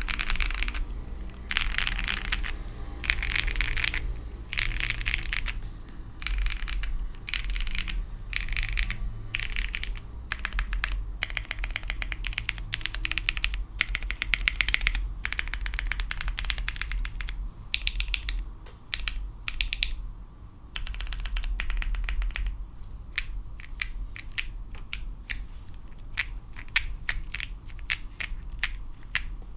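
Typing on a Wind X custom mechanical keyboard with lubed Cow switches, a POM plate and GMK keycaps, in a somewhat muted sound. Quick runs of keystrokes come in bursts with short pauses between them.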